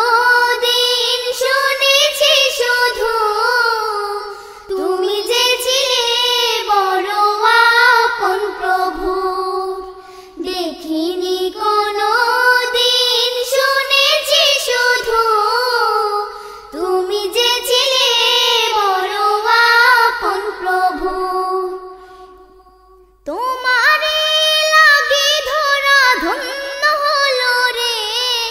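A young girl singing solo into a microphone: a Bengali Islamic song (naat) longing for the beloved Prophet. Her voice moves in long, wavering phrases with short pauses between them, the longest pause a little over 20 seconds in.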